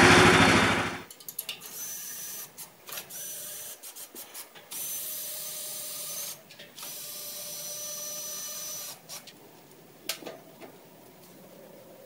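Briggs & Stratton 13.5 hp engine on a Frontier OS27 sawmill running, warming up after its first start, then cutting off abruptly about a second in. After that a power drill whirs in several spurts of one to two seconds each.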